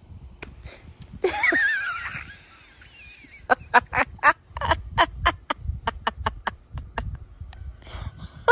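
A duck quacking: a longer wavering call about a second in, then a quick run of short quacks, about three a second.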